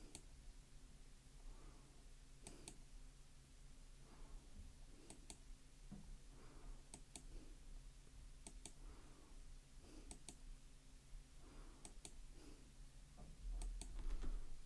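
Faint computer mouse clicks, coming in quick pairs about every one and a half to two seconds as a document is scrolled, with a low rumble near the end.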